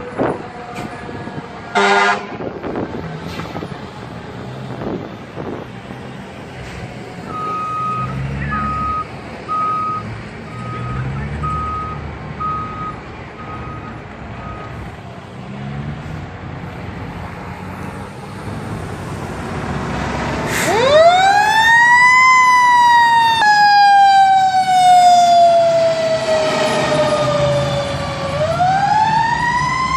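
Fire engine siren winding up to a loud wail about 21 seconds in, sliding slowly down in pitch, then winding up again near the end. Earlier there is a short blast of an air horn about 2 seconds in and a faint steady beeping at about one beep a second.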